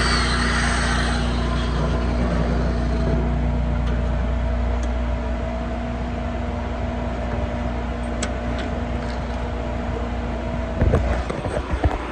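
A welding machine runs with a steady low hum. Over it, a sizzling hiss fades out in the first few seconds, and a few sharp knocks come near the end.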